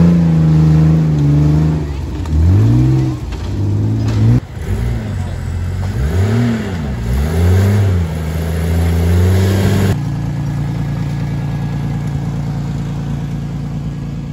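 Off-road 4x4 engines revving hard, the pitch swinging up and down again and again as the rigs climb a steep dirt bank. About ten seconds in, the sound changes abruptly to a steady engine drone.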